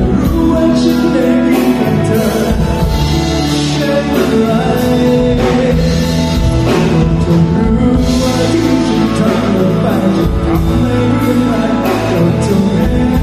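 Live rock band playing a pop-rock song: male singing over electric guitar, bass and a drum kit, loud through the venue's speakers.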